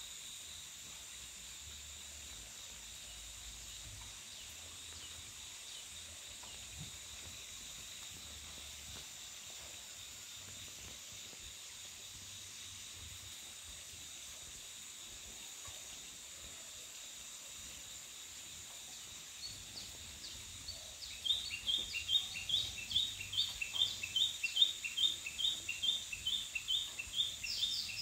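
Steady high-pitched insect drone, joined near the end by a bird's rapid repeated chirps, about three a second.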